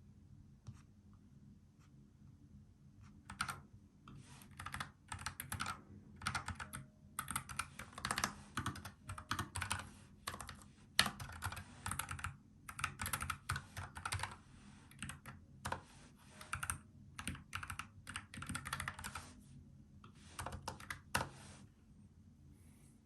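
Typing on a NuPhy Air75 low-profile mechanical keyboard with brown tactile switches: quick runs of key clicks in bursts, starting about three seconds in and stopping a little before the end.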